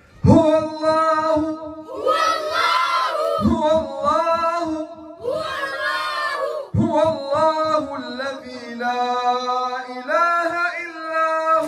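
A group of children singing a song together in unison, in long held notes and short phrases.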